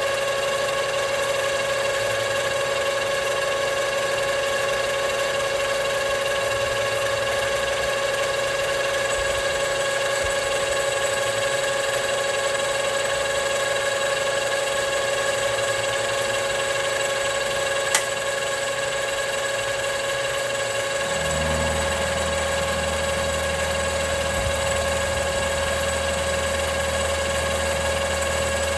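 Metalworking machine tool running steadily with a constant whine. A single sharp click comes about two-thirds through, and a lower hum joins shortly after.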